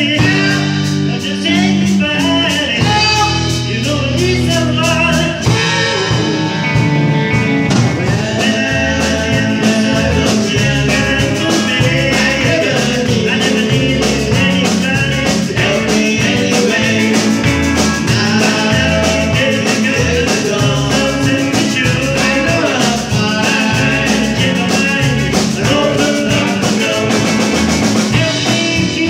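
Live rock band playing electric guitars and a drum kit, with a steady beat and amplified guitar lines.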